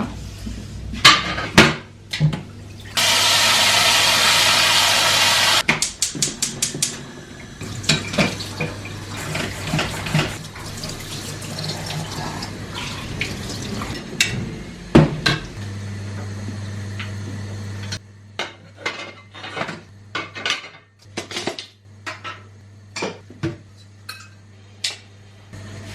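Kitchen work while cooking: a tap runs for about three seconds, a few seconds in, then pots, pans and utensils knock and clatter repeatedly. A low steady hum runs underneath, louder for a couple of seconds past the middle.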